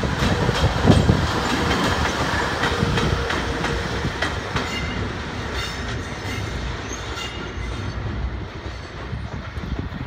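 EH500 electric locomotive running light as it pulls away: a steady rumble with its wheels clacking over rail joints, growing fainter as it moves off.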